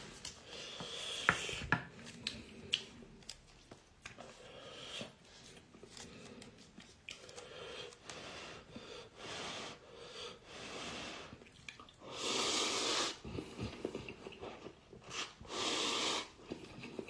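A person eating cup instant noodles close to the microphone: wet chewing and small mouth clicks, with two longer airy slurps about twelve and fifteen seconds in.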